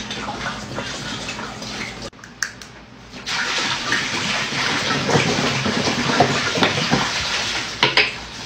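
Juice gushing from upturned plastic bottles into a large plastic tub of punch, a steady splashing pour. It dips about two seconds in and picks up again, louder, a second later, with a few sharp glugs near the end.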